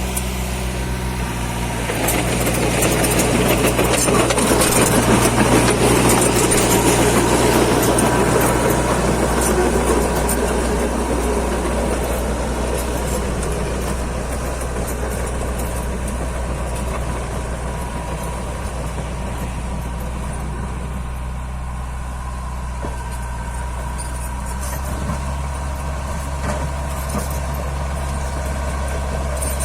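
Diesel engine of a Komatsu D21P-7 small crawler bulldozer running. It runs louder and rougher for the first several seconds, then settles to a steady idle-like run.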